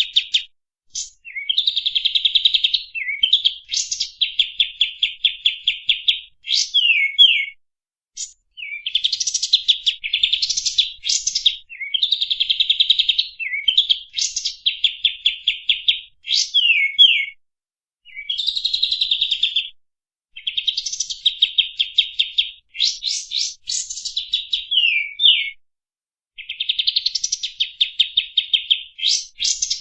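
Kapas tembak songbird singing long, rapid-fire trilled phrases of fast repeated high notes, some ending in quick downward slurs. About a dozen phrases are separated by short pauses.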